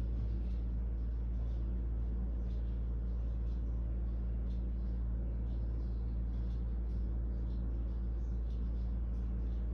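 Steady low hum with a faint hiss and a few faint scattered clicks: background room and phone-line noise with nothing else going on.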